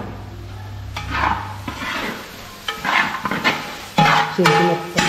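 A big pot of frying chilli masala and freshly added pitted dates being stirred, with a series of scraping strokes about a second apart over a sizzle.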